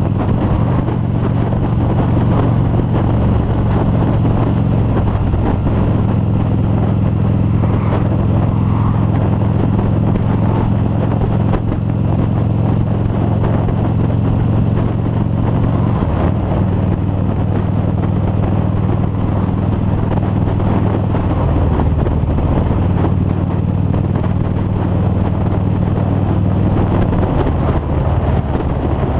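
Harley-Davidson V-Rod Muscle's liquid-cooled Revolution V-twin running steadily at cruising speed, with wind noise on a helmet-mounted microphone. The engine note shifts slightly a couple of times about two-thirds of the way through.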